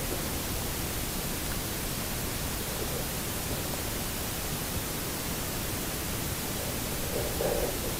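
Steady, even hiss of a camera submerged in lake water: muffled underwater noise, with a faint brief muffled sound near the end.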